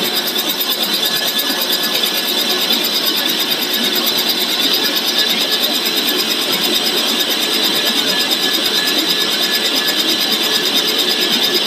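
Snack pellet extruder and cutter line running: a loud, steady mechanical noise with a constant high whine over a fast, dense rattle.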